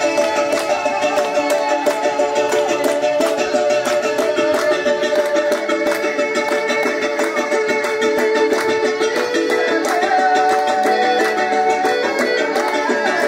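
Music for a traditional Timorese bidu dance, played on string instruments: a sustained melody that glides here and there, over plucked strings and a quick, even beat.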